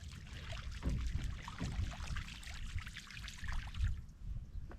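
Water trickling and splashing close by in a dense patter of small drips that stops about four seconds in, over a steady low rumble.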